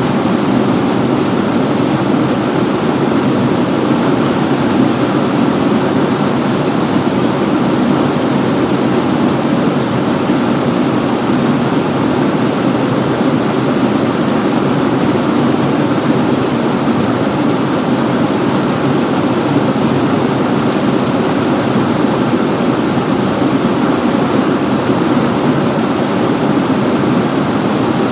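Waterfall: a loud, steady rush of falling water with no change throughout.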